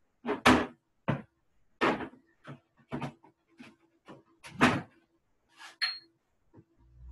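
A series of knocks and clunks as jars of beans are handled, set down and shifted on a stack of books. The loudest come about half a second, two seconds and four and a half seconds in. A low hum comes in near the end.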